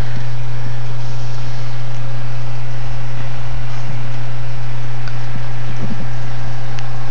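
A loud, steady low hum with constant noise over it, unchanging throughout, like a fan or appliance running, with a few faint ticks and knocks.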